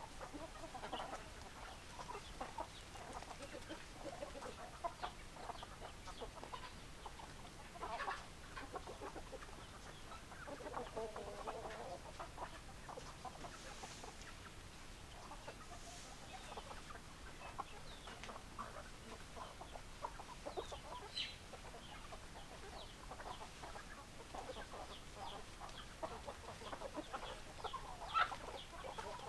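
A flock of hens clucking, many short calls overlapping without a break, with one longer wavering call about eleven seconds in.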